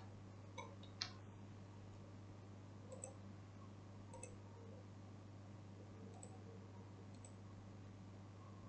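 Faint, scattered computer mouse clicks, about seven over several seconds, the sharpest about a second in, over a steady low hum.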